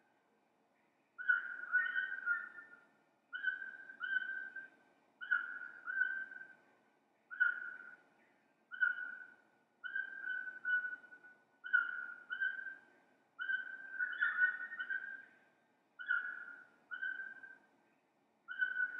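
Clear whistled calls in short phrases of two or three steady notes, repeating about every two seconds with brief near-silent gaps between them.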